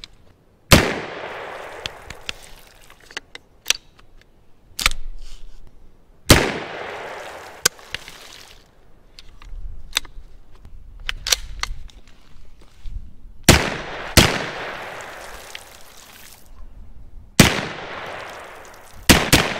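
HK SP5 9mm short-barreled rifle fired in single shots, about a dozen sharp cracks at uneven intervals, several trailing off for a second or more.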